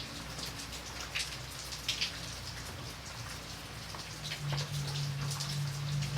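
Steady rain falling, with many separate drops striking a surface close by, and a low steady hum underneath that shifts in pitch about four seconds in.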